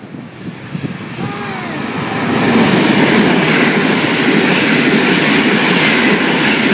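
A passenger train, a white Trenitalia trainset, running past along the platform. The noise of its wheels and cars swells about two seconds in and then stays loud and steady.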